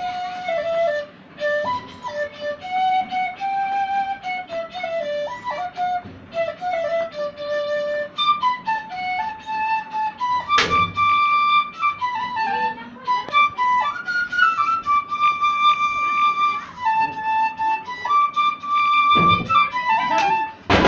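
Bansri (bamboo transverse flute) playing a solo melody, its phrases moving in the lower register at first and climbing higher about eight seconds in. A sharp click sounds about halfway through.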